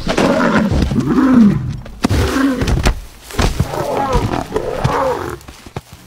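Lioness growling in a series of loud calls that rise and fall, while attacking a giraffe. Several heavy thuds come through as the giraffe kicks out and stamps.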